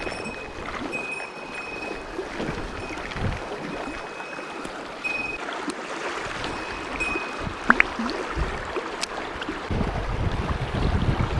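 Mountain stream water rushing steadily, with a couple of sharp clicks about three-quarters through and wind buffeting the microphone near the end.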